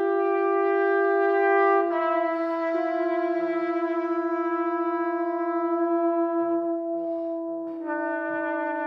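Trumpet and trombone holding long sustained notes together, shifting to new pitches about two seconds in and again near the end. In the middle the held tones pulse steadily in loudness as they beat against each other.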